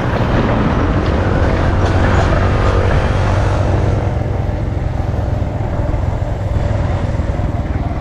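Motorcycle engine running steadily while riding along a rough dirt track, easing off slightly about halfway through.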